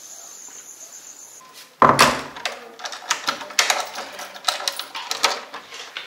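Crickets trilling steadily in one high, unbroken tone, which cuts off after about a second and a half. A loud knock follows, then a run of sharp knocks and clatter.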